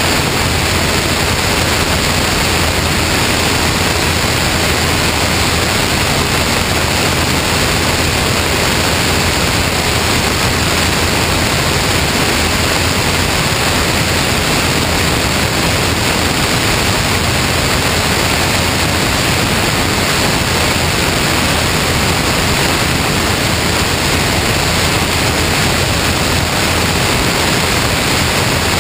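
Loud, steady rush of airflow over a camera mounted under the wing of a Cessna 162 Skycatcher in flight, drowning out any engine or propeller sound.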